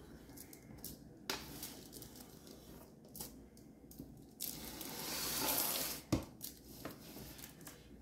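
Aluminium foil crinkling and rustling as a foil-lined cake tray is handled and turned on a countertop, with scattered clicks and knocks. The loudest stretch is a rustle that builds from about four seconds in and ends in a sharp knock about six seconds in.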